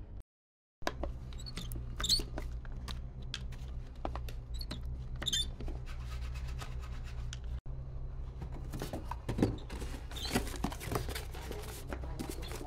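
Workshop sound: a steady low machine hum with scattered clicks, taps and light metallic clatter of parts being handled.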